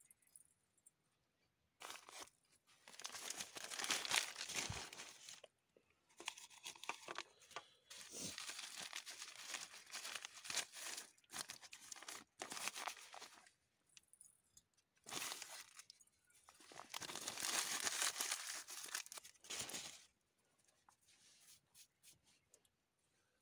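Newspaper rustling and crinkling as hands unfold small paper packets of spice powder and tip them into a steel pot, coming in several stretches of a few seconds each with short pauses between, fainter near the end.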